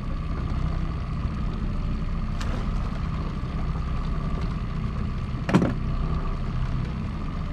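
Boat motor running steadily at trolling speed, a low drone with a steady whine above it. A faint click comes about two and a half seconds in, and a sharp knock about five and a half seconds in.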